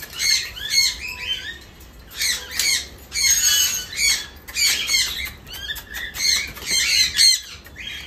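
Young sun conures screeching over and over, one or two harsh calls a second: hungry birds calling for food.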